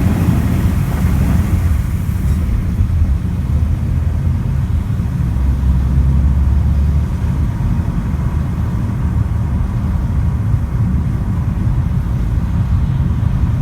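Car driving, heard from inside the cabin: a steady low rumble of engine and road, a little heavier around the middle, with some higher hiss that fades after the first couple of seconds.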